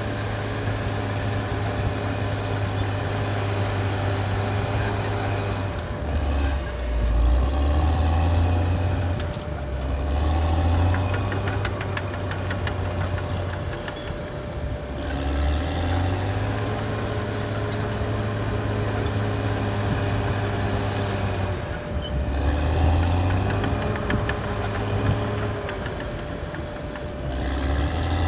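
Caterpillar D6R XL bulldozer's diesel engine running while it works. The engine holds a steady note, then drops in pitch and comes back up about five times.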